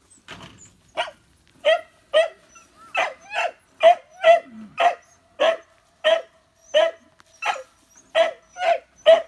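Beagle puppy barking in short, high-pitched yips, about two a second, starting about a second in and keeping up a steady rhythm.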